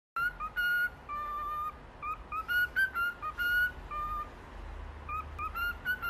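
Cockatiel whistling a tune: a string of clear short notes and longer held notes, stepping up and down in pitch.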